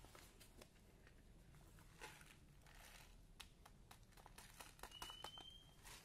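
Faint scattered ticks and rustling: small black bird-feed pellets being shaken out of a foil pouch into a plastic cup, the pouch crinkling as it is handled. The clicks come thicker about four to five seconds in, with a short faint high tone near the end.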